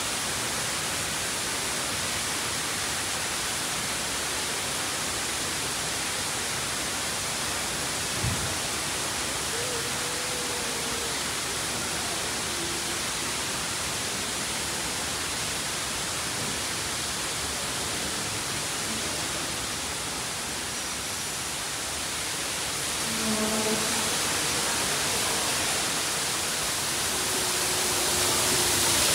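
Steady rush of a small garden waterfall pouring into a pond, growing louder near the end.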